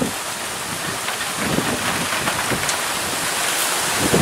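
Strong storm wind rushing through trees, with gusts buffeting the microphone in irregular low rumbles.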